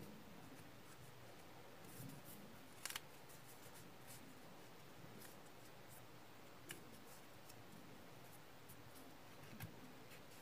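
Faint crackles and clicks of origami paper being folded and creased by hand, with a sharp double crackle about three seconds in and a few softer ones later.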